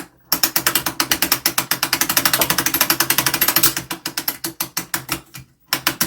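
Clock mainspring winder being cranked, its ratchet clicking rapidly and evenly at about ten clicks a second as the strike-side mainspring is wound tight. The clicking stops briefly near the end, then a few more clicks follow.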